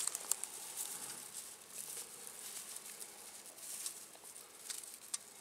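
Dry grass and twigs rustling and crackling, with many scattered light ticks and no steady tone.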